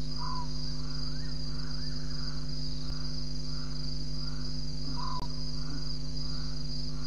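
Night chorus of crickets: a steady, continuous high trill, with a softer lower call pulsing about three times a second, and twice a short, brighter note.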